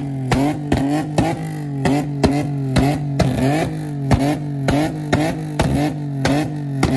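Nissan Maxima's V6 engine being revved in quick repeated blips, about three a second, each with a sharp exhaust crack, over a steady drone. It is the pop-and-bang of a car tuned to shoot flames from the exhaust.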